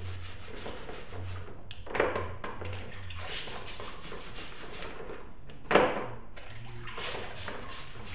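Small brush scrubbing a wet chainsaw chain over a bucket of cleaning liquid, in quick repeated scratchy strokes, with two sharp knocks of the chain or brush against the bucket.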